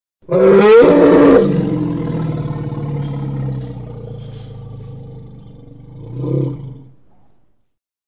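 Elephant call sound effect: a loud trumpet-like blast that rises in pitch for about a second, then drops into a long low call that slowly fades. It swells briefly once more near the end before cutting off.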